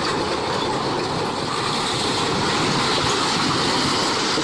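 A heavy vehicle's loud, steady noise with no clear engine note.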